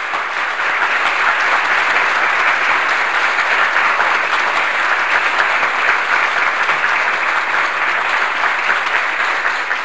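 Crowd applause, a dense steady clapping that holds at an even level.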